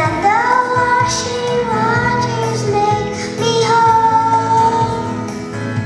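A young girl singing a solo into a microphone, holding long, slightly wavering notes, with musical accompaniment underneath.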